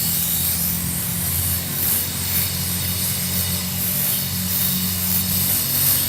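Gas welding torch hissing steadily while brazing a puncture in a refrigerator's aluminium tubing shut with aluminium filler, over a steady low hum.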